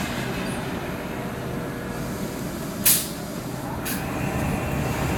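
Board-handling machinery running steadily. About three seconds in there is a short hiss of released air, and a fainter one follows a second later.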